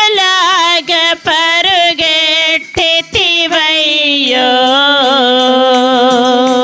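Women singing a Telugu Christian devotional song into microphones. The melody winds through a sung line, then settles into one long held note about four seconds in. A few hand claps are heard in the first half.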